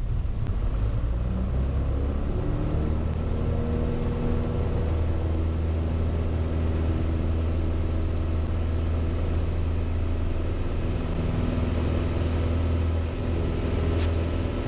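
Piper Cherokee 180's four-cylinder Lycoming engine and propeller, heard from inside the cabin. The pitch climbs over about two seconds as the throttle is opened from idle after touchdown, then the engine runs steadily at full power for a touch-and-go takeoff.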